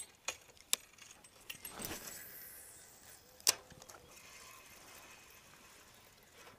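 Fishing rod and reel being handled: a few sharp clicks near the start, a swish about two seconds in, and a louder single click about three and a half seconds in.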